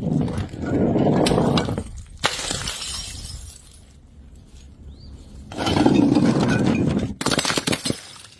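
Glass bottles breaking: several sudden smashes, each followed by a second or two of shattering glass, with sharp cracks near the end.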